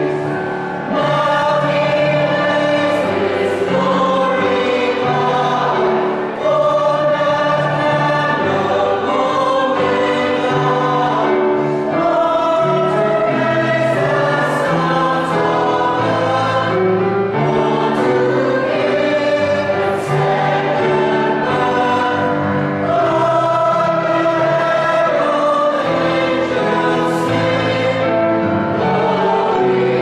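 Mixed choir of men's and women's voices singing a Christmas carol in parts, the sound full and steady throughout.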